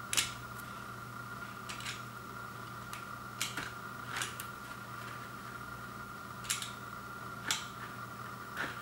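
Box cutter blade slitting the plastic shrink wrap along the edge of a vinyl LP sleeve: several short, sharp scratches and crackles of the film, the first the loudest, over a steady background hum.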